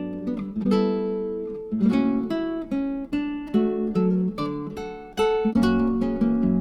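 Background music: acoustic guitar, plucked and strummed notes and chords.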